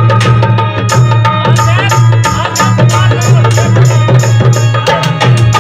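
Live Saraiki folk band playing an instrumental passage. A hand drum beats steadily over long held notes from a melody instrument.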